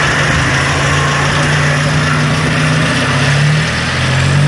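Land Rover Series pickup's engine running as it drives slowly past and away, its pitch rising a little near the end.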